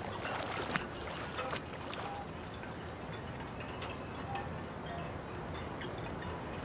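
Lake water splashing as a person wades and swims out through the shallows: a few sharp splashes in the first two seconds, then a steady watery hiss with a few faint ringing tones.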